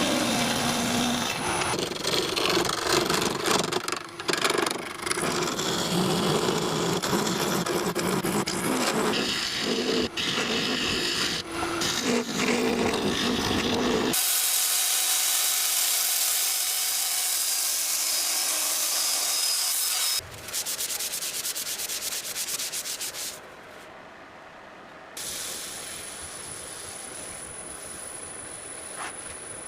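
Hand and power tools working wood: uneven scraping and rubbing, then a steady high hiss for several seconds about halfway through. This is followed by rapid fine ticking and quieter tool noise.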